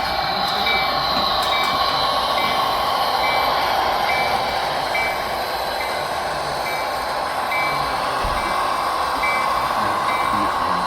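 Model train running on the layout, a steady mechanical running noise, with a short high-pitched tone pulsing about twice a second.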